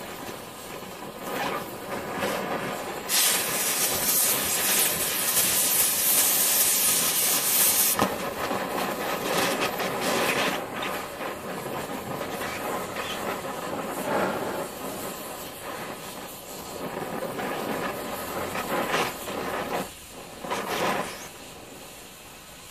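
Oxy-MagneGas2 cutting torch flame hissing steadily against a piece of tungsten, with a much louder, sharper hiss from about three seconds to eight seconds in.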